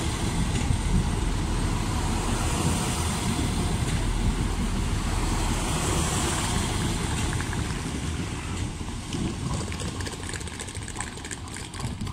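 Diesel intercity train standing at the platform, its engine running with a steady low rumble that eases off and gets quieter in the last few seconds.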